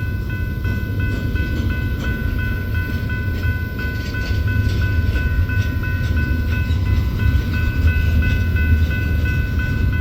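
Train rolling past with a steady low rumble and faint clicking of wheels, over several steady high ringing tones.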